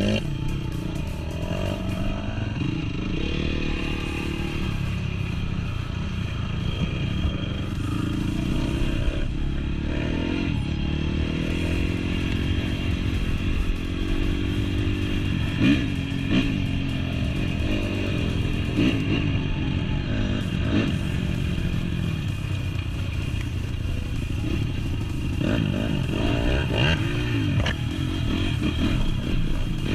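Honda CRF dirt bike's four-stroke engine being ridden, its pitch rising and falling continuously as the throttle is worked on and off.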